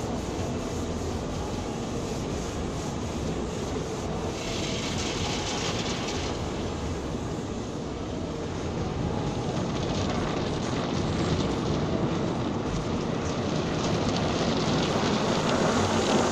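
Automatic car wash heard from inside the car: a steady rush of water spray and washing brushes on the windshield and body. A brighter, hissing spray comes about four seconds in, and the noise grows louder near the end.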